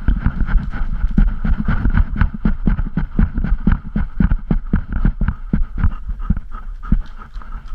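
Handling noise from a GoPro carried on a golden retriever: rapid, irregular knocks and rubbing with a low rumble as the camera jostles against the moving dog.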